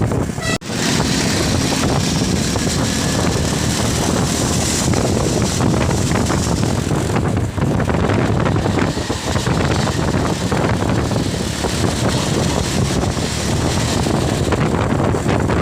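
Loud, steady roadside traffic noise of buses and cars going by, with wind buffeting the microphone; the sound cuts out for an instant just after the start.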